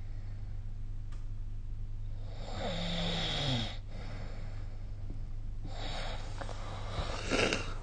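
A person snoring: two slow breaths, the first with a low snore tone that falls in pitch, over a steady low hum.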